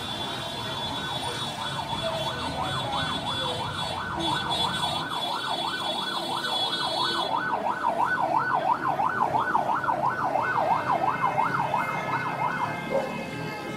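Emergency vehicle siren in a fast yelp, its pitch sweeping up and down about three times a second, then cutting off about a second before the end.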